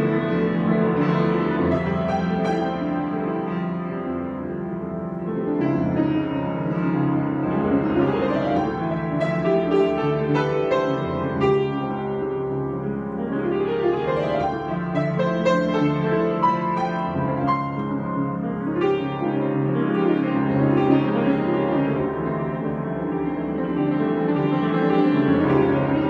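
Solo acoustic piano improvisation: continuous full chords with running notes above, swelling and easing in loudness.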